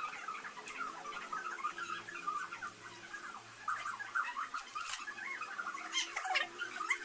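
Continuous rapid, high-pitched chirping and squeaking calls from an animal, with a few sharper squeaks near the end.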